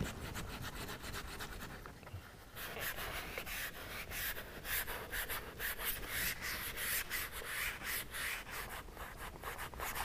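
Plastic in-channel vent visor rubbing against the rubber of a truck door's window channel as it is pressed in and slid along by hand, in quick repeated strokes. It is faint at first and grows louder and busier about two and a half seconds in.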